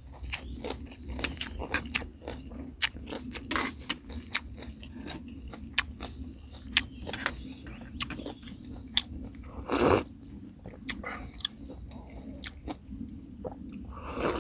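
Chewing and crunching of food close to the microphone: a string of irregular clicks and smacks, with one louder noisy sound about ten seconds in. A steady high insect trill, crickets, runs underneath.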